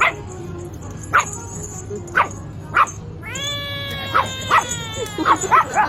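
A pet animal's short, sharp calls, about a second apart, then one long steady whine-like cry a little past the middle and a quick run of calls near the end.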